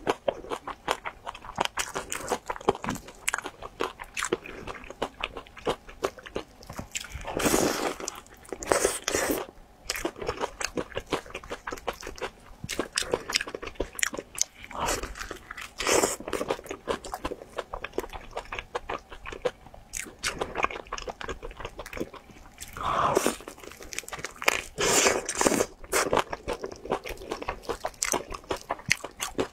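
Close-miked eating of cheese-sauce-coated fried chicken drumsticks: a steady run of crisp crunches and chewing, with a few louder bites.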